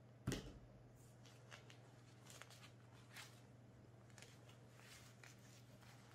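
A sharp knock about a quarter second in, then faint crinkling and rustling of a disposable diaper being fitted on a baby monkey by hand, over a low steady hum.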